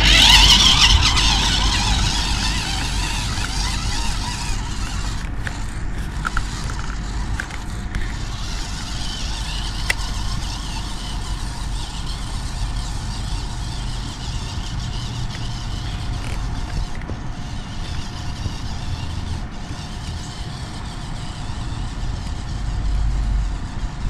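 Small 1/20-scale RC rock-crawler truck's dual electric motors whining as it drives off across grass, loudest in the first second or two and fading as it moves away, over a steady low rumble.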